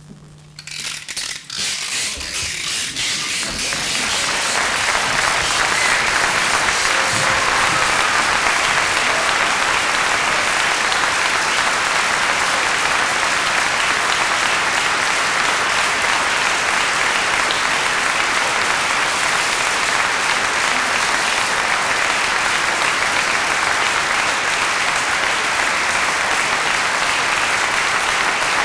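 Theatre audience applauding. The clapping breaks out about half a second in, swells over the first few seconds, then holds as dense, steady applause.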